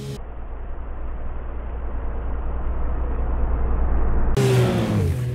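Snowmobile engine growing louder as the machine drives straight at the camera. It sounds muffled at first, then passes close by about four and a half seconds in, its engine pitch dropping as it goes past.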